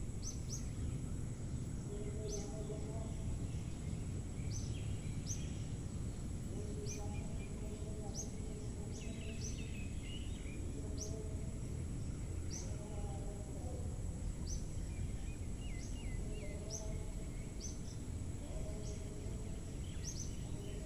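Forest ambience: a bird repeating short, sharp high chirps roughly every second or so, with lower warbling calls every couple of seconds, over a steady high insect drone and a low background rumble.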